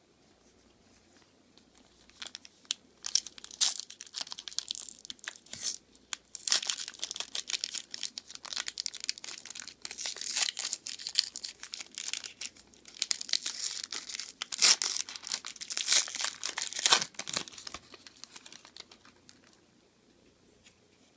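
A foil trading-card pack wrapper being torn open and crinkled: an irregular crackle of tearing and crumpling that starts about two seconds in, comes in several heavier spells, and dies away near the end.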